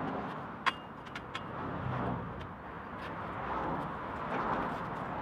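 Light metal clicks as a steel bracket is handled against a bicycle frame; the sharpest, about two-thirds of a second in, rings briefly. Under them is a steady background rumble that swells and fades.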